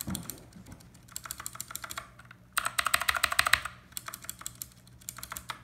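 Rapid typing in several bursts on a Redragon Kumara mechanical keyboard with rubber O-rings fitted under the keycaps. The O-rings cushion each keystroke, so the typing sounds quiet and fluent.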